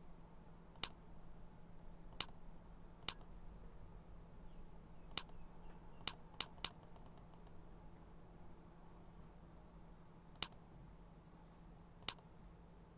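Single sharp clicks of a computer mouse, about nine in all at irregular intervals, three of them close together about six seconds in, followed by a brief run of faint quick ticks. A faint steady hum runs underneath.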